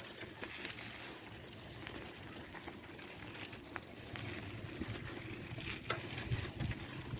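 Geared bicycle being ridden: a low, even rumble of tyres with scattered light clicks and rattles from the bike.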